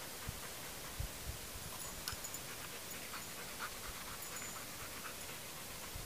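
German Shepherd dog panting, faint over a steady hiss, with a few soft low thumps in the first second or so.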